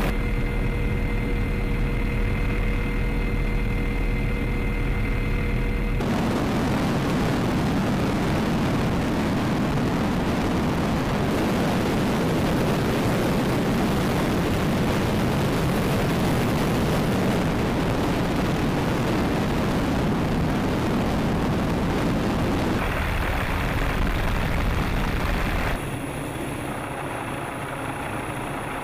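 MD-530F light helicopter heard from inside the cabin, its turbine engine giving a steady whine with several held tones. About six seconds in it changes abruptly to a dense, steady rumble, and it shifts again twice near the end, becoming quieter in the last few seconds.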